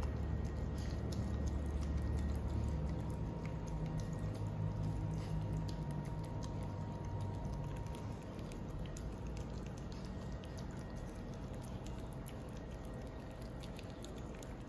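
Small poodle chewing and licking soft durian flesh: many small, irregular wet smacks and clicks of tongue and lips. A low hum underneath fades out about halfway through.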